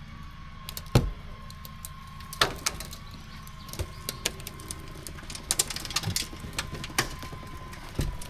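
Vehicle winch pulling under load over a low engine idle, with a thin steady whine and several sharp knocks and creaks, the loudest about a second in, as the rolled Jeep Cherokee shifts on its roof.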